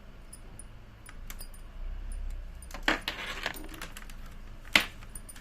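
A new keyboard and its USB cable being handled during unboxing: a few sharp hard-plastic clicks and knocks, two of them louder, with a brief rustle in between.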